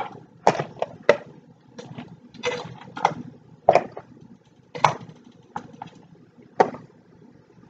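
Blue crab legs being dropped into a metal skillet of sauce, one handful after another: about ten irregular clicks and clunks of shell against the pan and the plastic tub.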